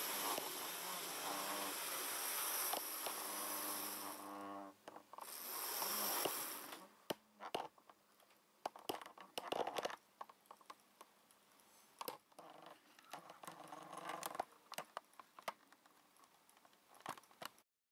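Hornby OO gauge Class 37 model locomotive running on the track, a steady whirring hiss of its motor and wheels that stops about seven seconds in as the train halts. After that come scattered sharp clicks and brief squeaks from a squeaky camera tripod.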